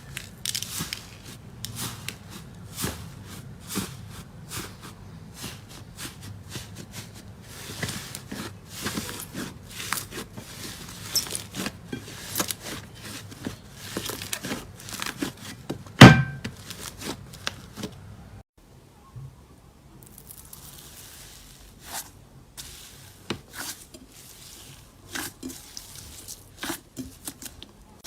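Slime being squished and worked, with many small crackles and pops and one loud slap about sixteen seconds in; the sound breaks off about eighteen seconds in and quieter, sparser popping follows.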